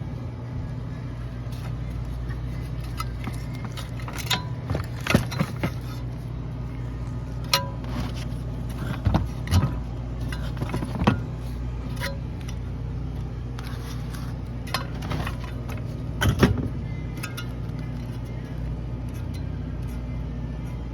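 Refrigerator with a damaged fan motor running: a steady low hum with irregular sharp clicks and knocks every second or few. The noise comes from the fan motor, which is damaged internally.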